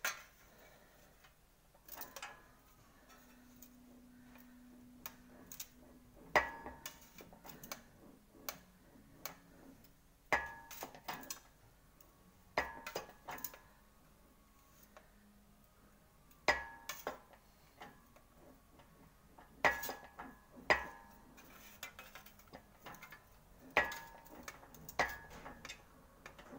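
Sheet-steel repair panel being worked through an English wheel, giving sharp metallic clinks with a short ring every few seconds, often two in quick succession.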